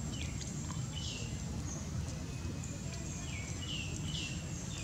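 Several short, high animal chirps, one a little under a second in and three in quick succession near the end, over a steady low rumble and a thin, steady high tone.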